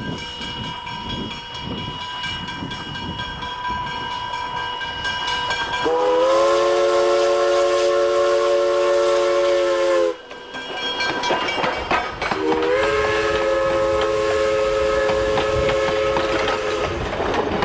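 Steam locomotive working down the line with a rhythmic exhaust chuff and steam hiss, then two long blasts of its multi-note chime steam whistle, the first about six seconds in and the second about twelve seconds in.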